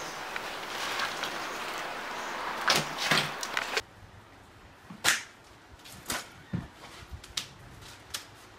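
A steady hiss with a couple of loud knocks, cutting off abruptly about four seconds in. Then about five sharp, separate knocks and clatters of loose wooden boards and broken plaster on a bare floor.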